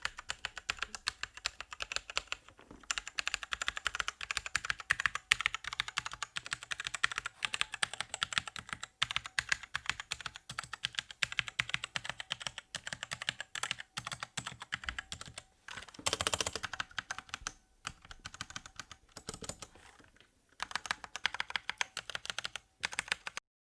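SPC Gear GK550 mechanical keyboard with Kailh Brown tactile switches and pudding keycaps being typed on quickly and steadily, a dense run of key clicks with a few short pauses. The typing stops abruptly shortly before the end.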